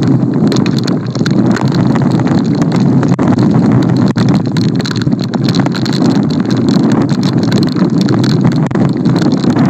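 Storm wind buffeting the microphone, a loud steady rumble, with rain and many small clicks and taps over it.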